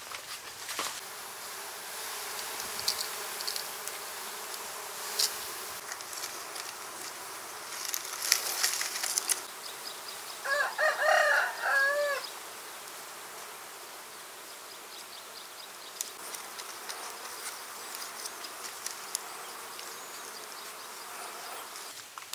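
Honeybees from a wild comb buzzing steadily as the comb's branch is handled and cut, with a few sharp clicks and rustles about eight seconds in. A rooster crows once, loudly, near the middle.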